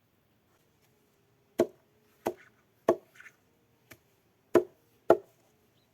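A series of six sharp knocks at uneven intervals, over a faint steady hum.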